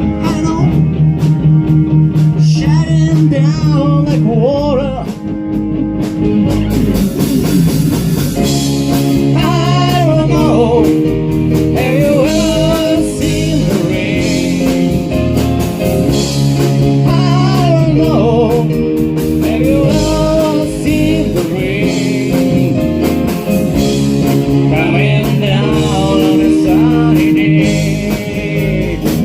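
Rock band music: guitars, bass and drums playing steadily, with a lead melody line that bends up and down in pitch.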